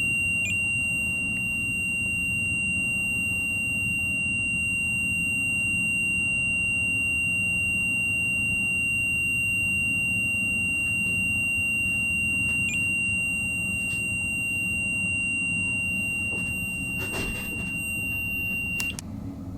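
MEL-8704 paranormal meter's alarm sounding one steady high-pitched tone, which cuts off suddenly near the end. A few clicks come just before it stops, over a steady low hum.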